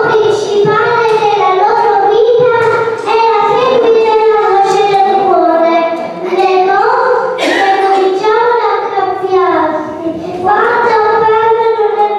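A young child singing a song into a microphone, a melody with long held notes broken into phrases.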